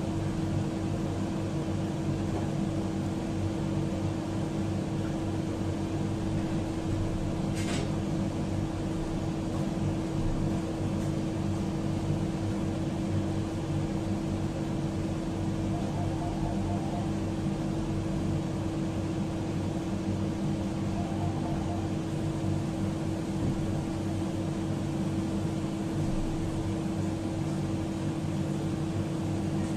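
Steady hum of a kitchen appliance with a constant low tone, holding the same level throughout. A single short click about eight seconds in.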